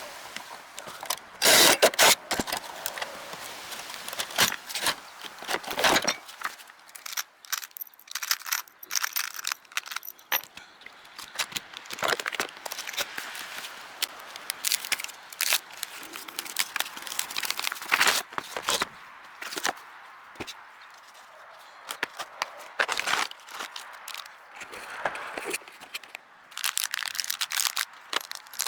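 Tools and small metal parts being handled: an irregular run of clicks, clatters and scrapes, with louder knocks about two seconds in and again about six seconds in.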